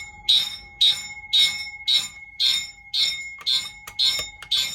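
Fire alarm system going into alarm in march time: its horns and bell pulse on and off about twice a second through a relay timer module, over a faint steady tone.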